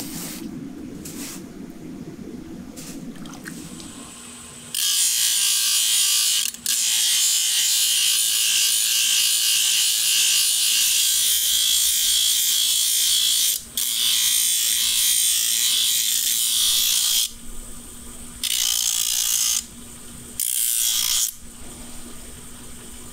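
A hot steel horseshoe bubbling in a bucket of quench water, then being ground against a bench grinder's abrasive wheel. The grinding is a loud, high, even rasp lasting about twelve seconds, broken twice for a moment, followed by two shorter touches to the wheel, with the grinder motor humming faintly between them.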